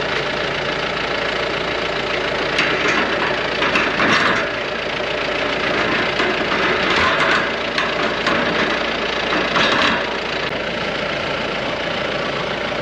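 John Deere loader tractor's diesel engine idling steadily close by, with a few louder, noisy stretches rising over it a few seconds in, around the middle and near ten seconds.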